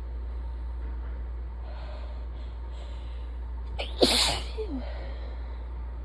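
One sharp, sudden sneeze about four seconds in, from a bout of allergy sneezing, trailing off in a short falling voiced sound. Soft breaths build up in the seconds before it.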